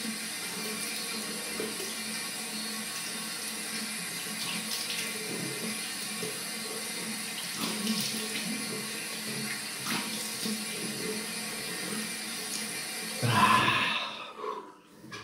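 Tap running steadily into a sink, with splashing as cold water is scooped over the face to rinse after a straight-razor shave. Near the end comes a loud blowing breath.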